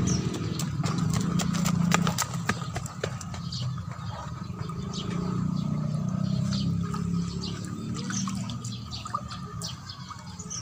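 A hand stirring liquid fertiliser mix in a plastic bucket, sloshing and splashing in irregular pulses with small drips and splashes. It is strongest in the first couple of seconds and again midway.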